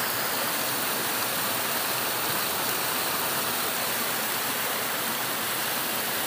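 Steady rush of water from a mountain waterfall and the snowmelt stream running beneath a sheet of old snow.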